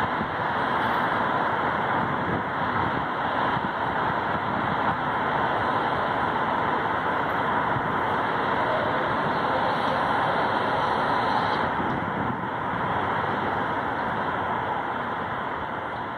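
Steady road-traffic noise of a city, an even hiss-like rumble with no distinct events, easing off slightly near the end.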